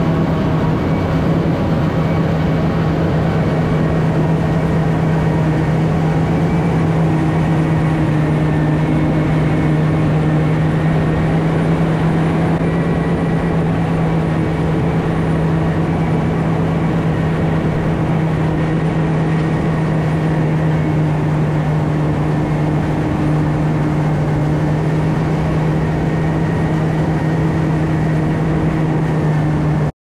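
Claas Jaguar self-propelled forage harvester running steadily at working speed while chopping corn silage: a loud, constant engine hum at one steady pitch over the rush of the cutterhead and crop flow.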